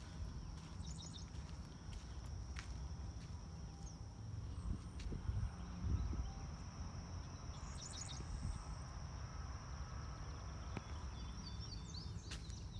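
Outdoor rural ambience: a steady low rumble that swells briefly about five seconds in, a continuous high-pitched tone, and a few short high chirps.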